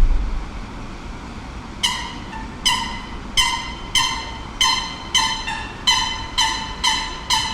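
A metal bell rung over and over, about a dozen clear ringing strikes under a second apart, each dying away, starting about two seconds in over a steady hum of city background. A low thump sounds right at the start.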